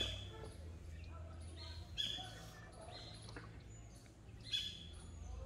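Birds chirping, repeated short high chirps, with three louder sharp sounds about two seconds apart, over a low steady rumble.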